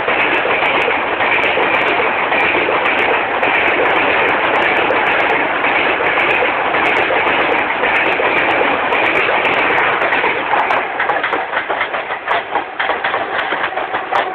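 Indian Railways express passenger coaches passing at full speed: a loud, steady rush of wheel and wind noise. About ten seconds in it turns into an uneven clatter of wheels over the rail joints as the last coaches go by and draw away.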